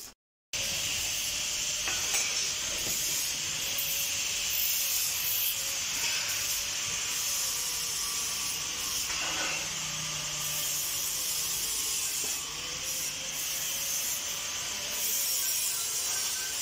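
Steady hiss, starting suddenly about half a second in, with a faint wavering tone underneath.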